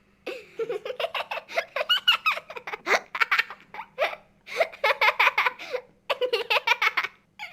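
A little girl laughing: quick runs of high giggling and belly laughs, breaking off briefly about four and six seconds in.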